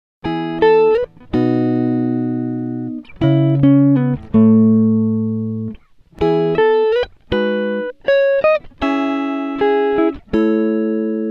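Background music: plucked guitar notes and chords, each struck sharply and left to ring out and fade.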